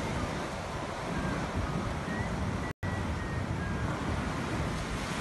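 Heavy surf washing and breaking over the shore, with wind buffeting the microphone in gusts. The sound drops out for an instant a little past halfway through.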